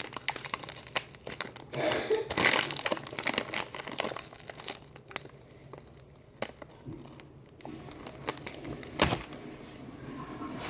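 Cornstarch packaging crinkling and rustling in bursts as it is handled and poured, loudest a couple of seconds in and quieter in the middle, with a sharp click near the end.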